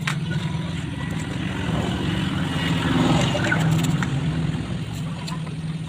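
A steady engine hum that grows louder around the middle and then eases, with a few faint clicks.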